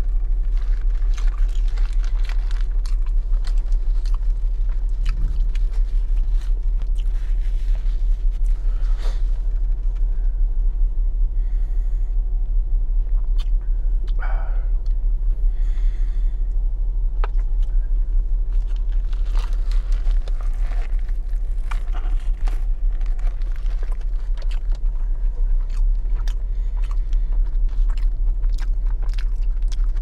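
Close-miked chewing and crunching of a foil-wrapped burger, with the foil wrapper crinkling, over a steady low hum in a car's cabin. Partway through come a few sips through a straw from a fountain drink.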